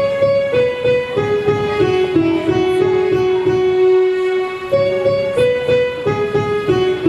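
Electronic keyboard playing a slow melody in long, held notes: a falling phrase that starts again about two-thirds of the way through, over a low, steady rhythmic accompaniment.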